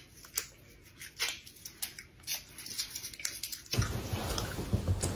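Scattered light clicks and taps, then about two seconds of rustling starting near the end.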